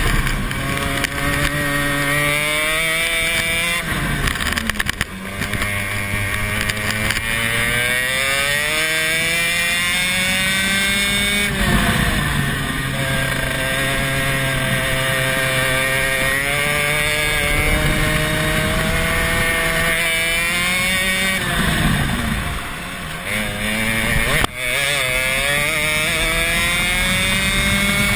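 Rotax Max 125cc single-cylinder two-stroke kart engine running under hard throttle. The revs climb steadily along the straights and drop sharply each time the driver lifts off into a corner, about four times, then climb again.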